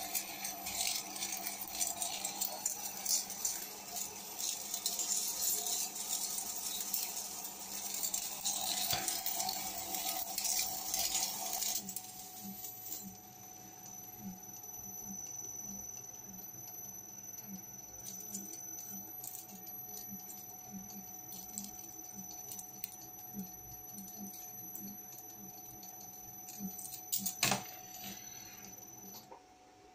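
Mini lathe turning metal: for about the first twelve seconds the cut runs with a hissing, jangling clatter of chips, then the lathe keeps running with a steady whine and a light regular ticking. A sharp knock comes near the end, and the whine stops just after it.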